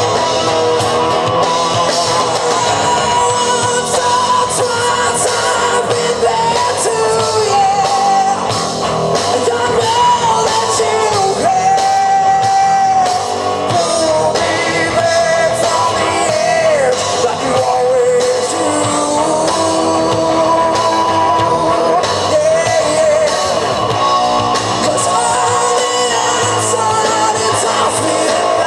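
Live rock band playing electric guitars, bass and drums, with a lead singer singing over them in long, sliding vocal lines.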